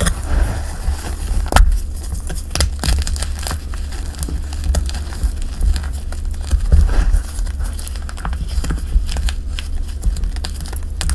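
Dyed gym chalk and cornstarch crushed and crumbled by hand close to the microphone: an irregular run of dry crackles and crunches over a low handling rumble.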